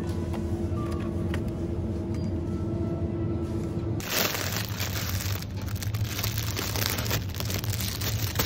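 Background music over a steady low hum. About halfway through it gives way to a thin plastic bag of croissants crinkling as it is handled.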